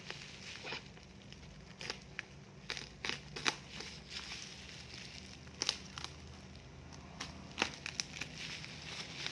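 Packaging being handled and opened: irregular crinkling and crackling with scattered sharp clicks.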